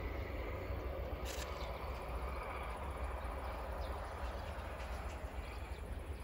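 Wind buffeting the microphone, making an uneven low rumble over a faint outdoor background, with a brief high click about a second in.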